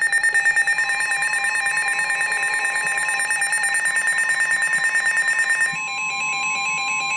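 NOAA Weather Radio 1050 Hz warning alarm tone, a steady single tone starting about a second in, which signals that a warning broadcast follows. Over it a fast-pulsing, warbling electronic alert tone sounds and stops abruptly near six seconds.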